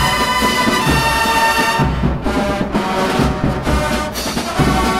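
Drum and bugle corps playing: the brass bugles hold bright chords, drop out through the middle for a lower passage with drum strikes, and come back in near the end.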